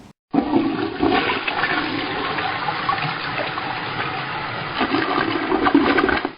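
Toilet flushing: a loud rush and gurgle of water that starts suddenly and cuts off abruptly, used as a sound effect.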